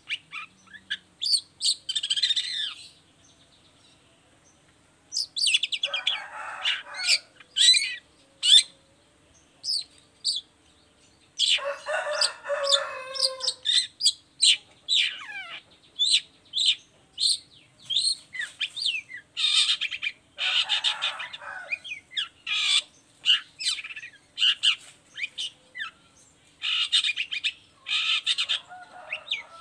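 Long-tailed shrike (cendet) singing: rapid runs of short, high chirps and whistles, broken four times by harsh, rasping chatter, with two short pauses.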